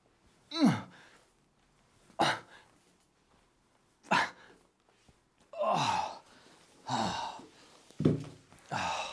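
A man's strained grunts on each dumbbell lift, each one falling in pitch, spaced about every one and a half to two seconds. From about halfway they come closer together and breathier, turning into heavy effortful exhalations as he tires.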